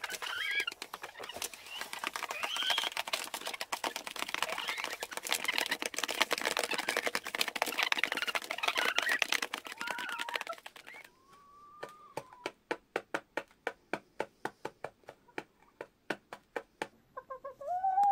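Hens clucking among a dense clatter of pecking. About eleven seconds in, a single hen call, then one hen pecks grain at a feeder tray in sharp clicks about four a second, with another short call near the end.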